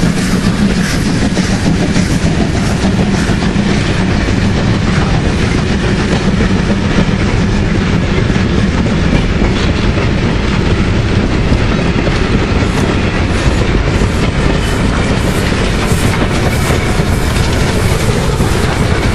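Vintage passenger carriages of a departing steam train rolling past close by, the wheels clattering over the rail joints without a break.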